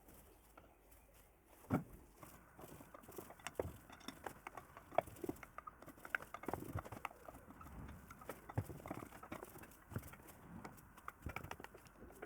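Irregular light clicks and knocks, scattered unevenly, with a sharper knock about two seconds in and another near five seconds.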